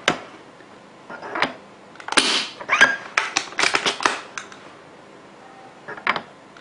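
Shot from an HPA-converted Amoeba Striker bolt-action airsoft sniper rifle firing a BB through a chronograph: a short puff of released air about two seconds in. Around it come a run of sharp mechanical clicks from the rifle being handled and its bolt worked.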